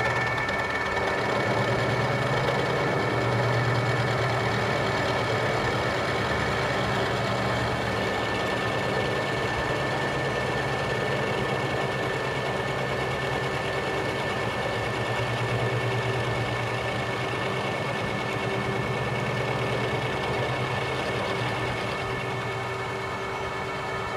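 Metal lathe running steadily through a finishing cut on a spray-welded shaft, a low hum with a steady high whine from the drive.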